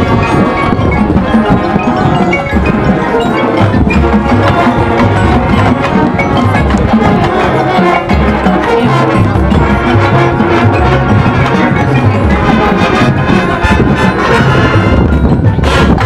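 High school marching band playing loud and full, with brass and woodwinds over front-ensemble mallet percussion and chimes. A run of sharp percussion strikes comes in near the end.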